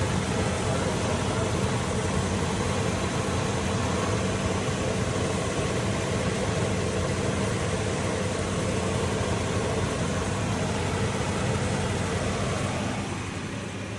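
Chevrolet C20 pickup's engine idling with a misfire that makes it shake; the owner suspects one cylinder on the bank that had the bad oil leak and expects an oily spark plug.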